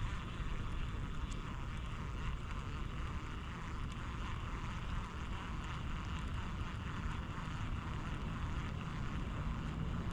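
Steady outdoor background noise: a low rumble with an even hiss above it and no distinct events.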